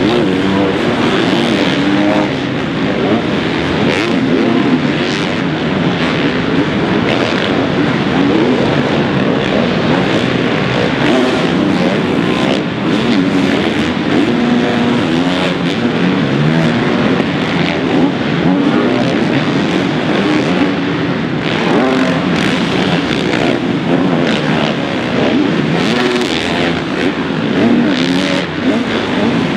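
Several motocross bikes' engines revving up and down, overlapping one another as they ride the track, the pitch rising and falling continuously with throttle and gear changes.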